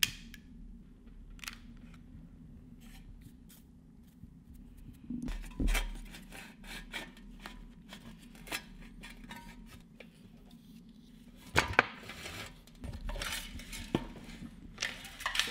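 Scattered clicks, knocks and rustles of hands working a Predator 212's plastic recoil starter housing while threading a new pull cord through it, with a few louder knocks about five and a half and eleven and a half seconds in, over a steady low hum.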